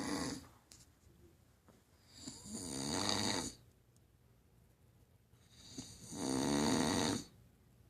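Snoring in a slow, even rhythm. There are two long snores of over a second each, about three and a half seconds apart, and the tail of another right at the start.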